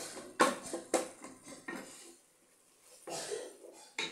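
Spatula knocking and scraping against an aluminium cooking pot while stirring and breaking up clumps of minced meat in oil. The knocks come irregularly, with a short lull a little past halfway.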